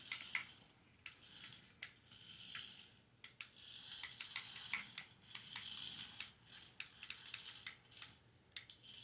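Miniature remote-control car's tiny electric drive motor whirring high-pitched in several short runs, with small clicks and taps between.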